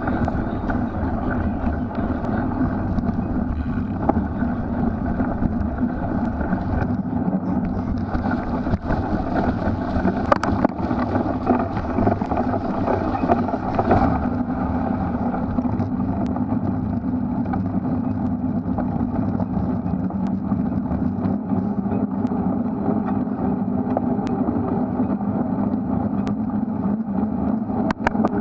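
Steady rushing of wind on the microphone mixed with tyre and drivetrain noise from a cyclocross bike ridden over a muddy course. A few sharp knocks come from bumps, mostly in the middle and near the end.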